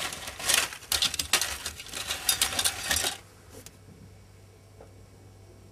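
Rattling and clinking of wires and small plastic connectors being handled for about three seconds, stopping suddenly.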